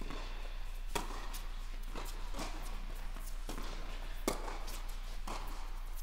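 Tennis balls being struck by racquets and bouncing on an indoor hard court, sharp pops every half second to a second with a short echo from the hall. A steady low hum runs underneath.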